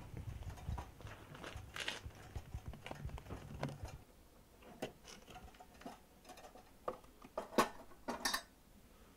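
Slow footsteps of leather dress shoes on a gritty concrete floor, one sharp step about every two-thirds of a second, the loudest near the end. A low hum runs underneath and stops about four seconds in.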